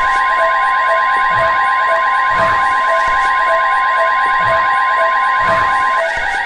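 Emergency Alert System alert tone: a loud, steady electronic tone with a pulse repeating about once a second. One of its tones cuts off about six seconds in. It signals a coordinated monthly test of the broadcast stations.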